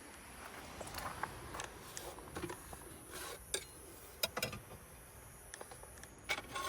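Irregular light clicks and knocks, a few close together around the middle and a sharper pair near the end, over a faint steady background.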